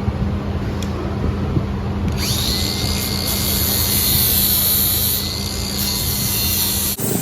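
A handheld power tool spins up about two seconds in with a quick rising whine, then runs at a steady high whine before cutting off suddenly near the end, over a steady low hum.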